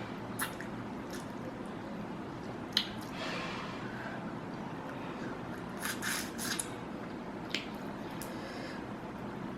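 Wet, sticky eating sounds from chili prawns in sauce: scattered lip smacks and squishy clicks, with a cluster of them a little past halfway.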